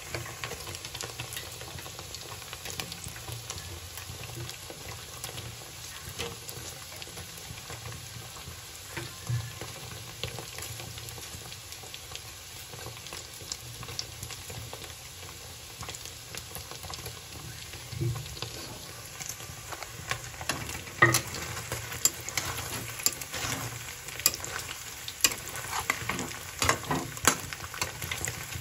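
Paneer cubes sizzling steadily as they shallow-fry in oil in a kadai. A steel spatula scrapes and knocks against the pan, a few times at first and much more often in the last third.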